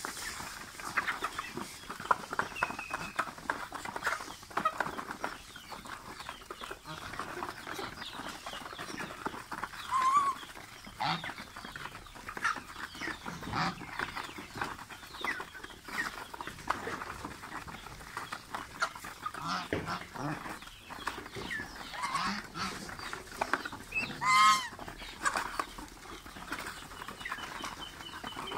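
Mixed flock of ducks, geese and chickens dabbling at a metal pan, a busy patter of bills clicking and splashing, with chicken clucks throughout. A short call comes about ten seconds in, and a louder goose honk sounds near the end.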